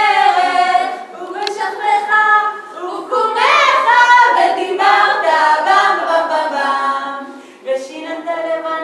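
A small group of voices singing together a cappella, without instruments.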